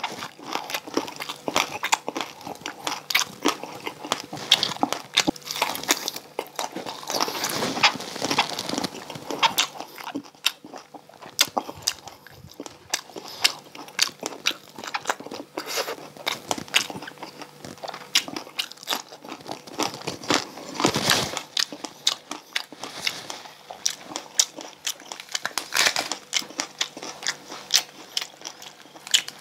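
Close-miked eating of crispy deep-fried pork belly (bagnet): quick, irregular crisp crunches of the crackling skin mixed with chewing. A few bites are louder, around two-thirds of the way through and again a little later.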